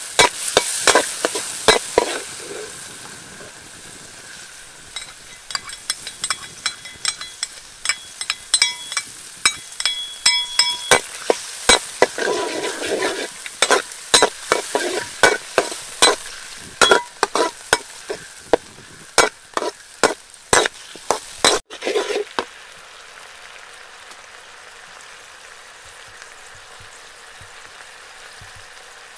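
A metal spatula clanks and scrapes against a steel wok over and over while chopped garlic and chillies sizzle in hot oil. The stirring stops suddenly about 22 seconds in, leaving only a steady hiss.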